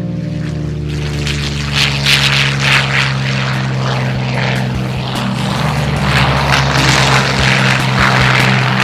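Propeller aircraft engine running with a steady drone under a rough rushing noise that grows louder about two seconds in and again from about six seconds on.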